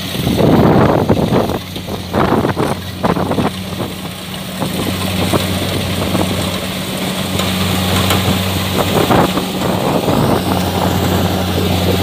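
Kubota DC-70 combine harvester's diesel engine running at a steady pitch, with bursts of rushing noise in the first few seconds and again near the end.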